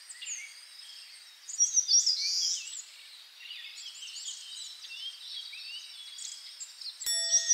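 Birds chirping and twittering, many calls overlapping, most dense about a second and a half in. Near the end a click and a held tone come in.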